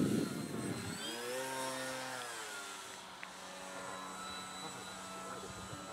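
Electric motor and propeller of a radio-controlled model plane in flight: a whine that rises in pitch about a second in and falls away again a second or so later, then settles into a fainter steady drone. A low rumble fades out in the first second.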